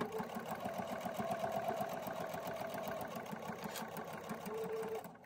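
Domestic sewing machine running at a steady speed, stitching a straight seam through jacquard fabric with a fast, even stitching rhythm; it stops shortly before the end.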